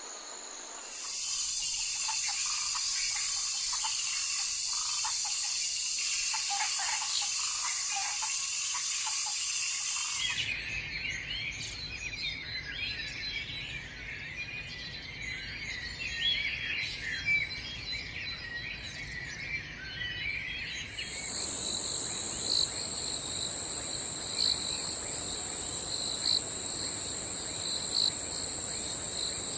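Forest ambience of insects and birds in three abruptly joined recordings. From about a second in, dense steady insect buzzing with birds chirping beneath. Around 10 s in it cuts to busy bird chirping and twittering, and around 21 s in to a steady insect trill with regular pulsing calls.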